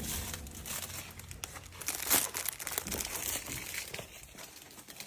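Crinkling of a wrapper being handled: irregular crackles that die down about four seconds in.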